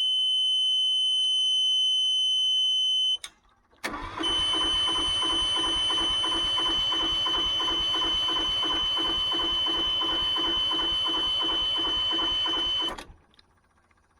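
A truck APU's small diesel engine being cranked by its starter for about nine seconds with a rhythmic chug about twice a second, failing to catch, under a steady high-pitched buzzer tone. The buzzer sounds alone at first, stops briefly about three seconds in, returns as the cranking starts, and both cut off together near the end.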